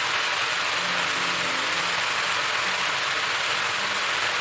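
Sliced potatoes with onion and garlic sizzling steadily in hot oil in a frying pan.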